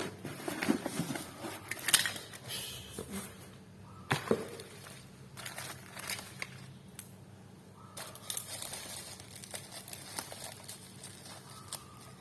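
Parcel packaging being handled and torn open: irregular crinkling and rustling with scattered sharp clicks and snaps.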